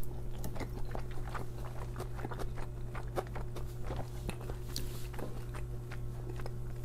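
Close-miked chewing of a mouthful of cheesy bacon cheeseburger rice: many small, soft mouth clicks and smacks, over a steady low hum.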